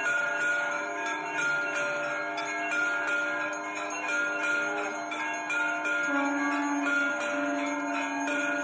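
Hindu temple bells ringing continuously with rapid repeated strikes and many overlapping ringing tones. A steady, slightly wavering low tone joins about six seconds in.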